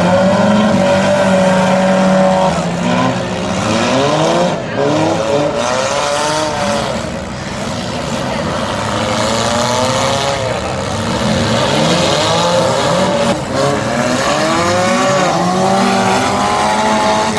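Several demolition derby cars' engines revving hard together, their pitch rising and falling again and again as the cars accelerate, back off and accelerate again.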